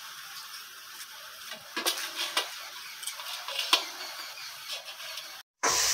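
Butter paper crinkling and crackling as it is laid and pressed flat over a stainless steel plate, with a few light taps. After a brief break near the end, a spatula scrapes through coconut mixture sizzling in a wok.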